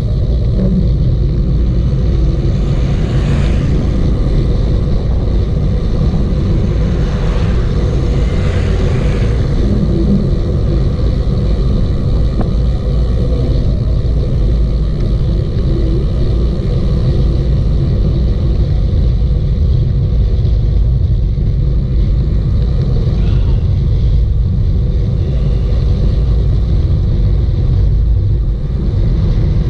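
Wind buffeting the camera microphone on a fast bicycle descent of a mountain pass: a loud, steady low rumble.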